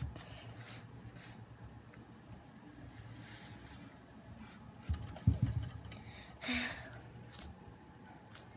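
Fingers squeezing and rubbing a soft foam panda bun squishy toy on a table: quiet rubbing and scraping with a few light clicks, and a dull knock a little after five seconds.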